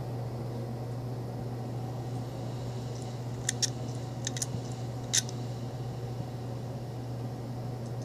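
Western Digital laptop hard drive, opened with its top cover off, clicking: about five sharp head clicks in two quick pairs and then a single louder one, over a steady low hum. The drive is failing to come ready after its controller board was replaced with one carrying older firmware.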